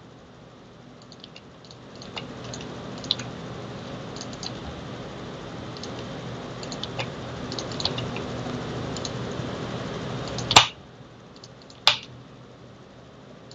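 Computer mouse and keyboard clicks: scattered light clicks over a steady hiss, then two loud, sharp clicks near the end, with the hiss cutting off at the first of them.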